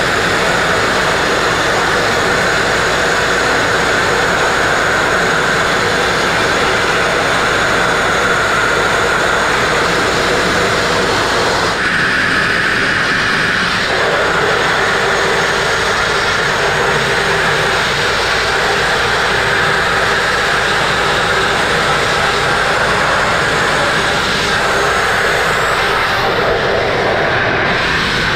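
Sandblasting nozzle blasting copper slag abrasive with compressed air against a narrow boat's hull, stripping paint and filler: a loud, steady hiss that changes tone briefly about twelve seconds in and again near the end.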